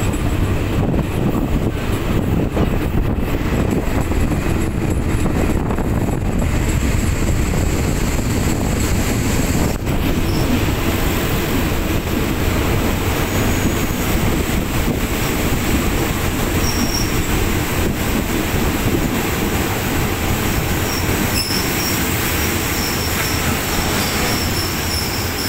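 Local passenger train No. 451 running along the track with a steady rumble of wheels on rail. Faint high wheel squeal comes in during the second half.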